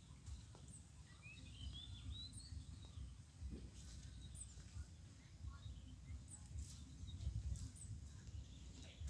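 Birds calling outdoors: a short twittering phrase about two seconds in, and brief, very high chirps every second or so, over a low rumbling noise.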